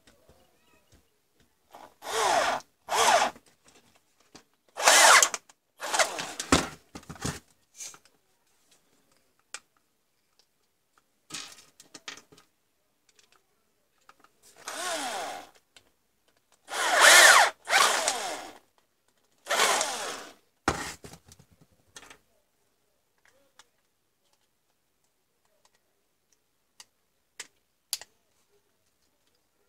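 Cordless drill-driver run in about nine short bursts, spinning up and down as it works the small screws holding the circuit board of an opened Dremel 3000 rotary tool. Faint clicks of handling near the end.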